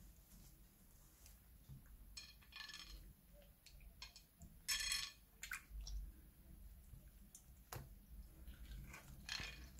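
Slime being handled: a few faint, short, wet squelches and clicks, the loudest about five seconds in.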